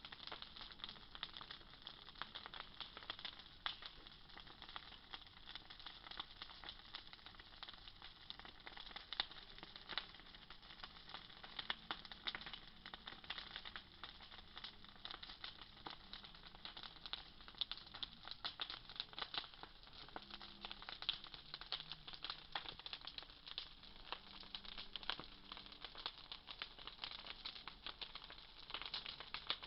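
Bonfire crackling, with dense, irregular pops and snaps over a steady hiss.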